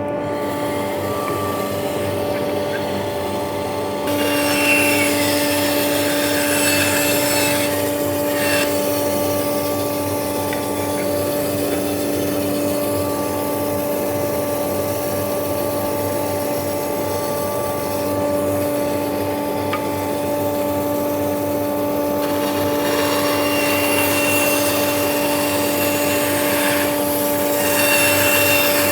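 Metabo BAS 261 band saw running, its 400-watt induction motor giving a steady hum, with the blade cutting through wood in two longer stretches of rasping hiss, one in the first third and one near the end.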